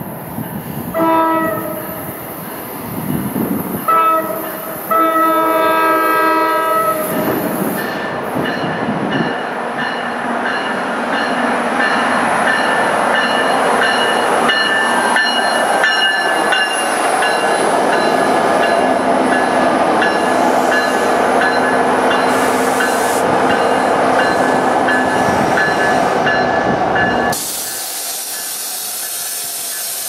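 NJ Transit locomotive's horn, an uploader-tagged K5LA, sounding in several blasts: one about a second in, then a short and a longer one from about four to seven seconds. The train then rumbles past close by, with steady high tones over the rumble, and near the end gives way to a hiss.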